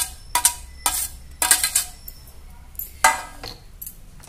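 A steel spoon clinks and scrapes against a stainless steel plate as chopped dill is pushed off it into a steel bowl. About half a dozen sharp metallic clinks each ring briefly, and the loudest comes about three seconds in.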